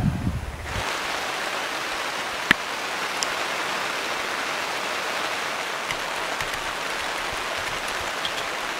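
Heavy rain falling steadily as an even, dense hiss, starting abruptly about a second in, with one sharp tap of a drop or knock a couple of seconds later.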